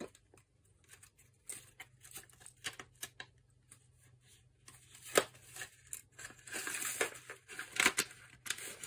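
Handling noise of 120 roll film and its paper backing, rustling and crinkling, with scattered plastic clicks from a developing-tank film reel as the film is fed in and one sharp click about five seconds in. Near the end comes a denser run of rapid clicks and rustle as the reel is gripped and turned to draw the film on.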